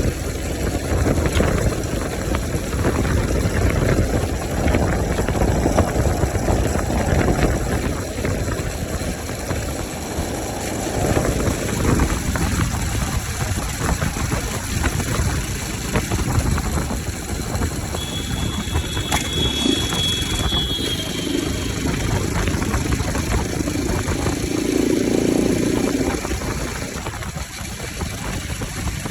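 Bajaj Pulsar 200 single-cylinder motorcycle engine running with its air filter removed, which leaves the intake open. The engine note swells and eases several times, and a short high steady tone is heard about two-thirds of the way through.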